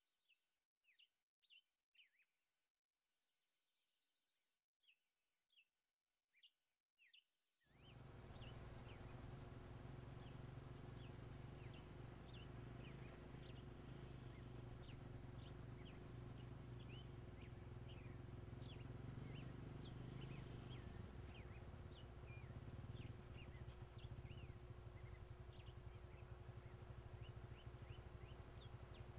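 Faint, frequent bird chirps, at first over near-silence. About eight seconds in, a steady low hum and hiss of outdoor background starts suddenly, and the chirping goes on over it.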